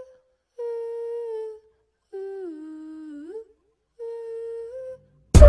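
A voice humming three long held notes with short pauses between them, the middle note lower and sliding up at its end. Loud music cuts in right at the very end.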